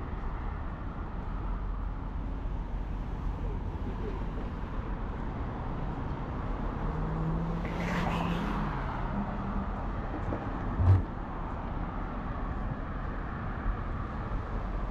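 Road traffic running steadily beside the footpath, with a car passing by near the middle. A brief low thump about two thirds of the way through is the loudest sound.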